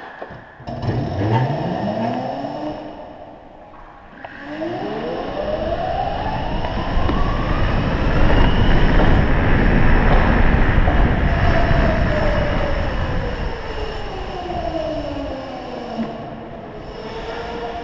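Electric scooter's motor whining as it pulls away, the pitch rising briefly, dropping, then climbing steadily to a peak about halfway and gliding back down as it slows. A broad rushing noise runs under the whine, loudest while the whine is highest.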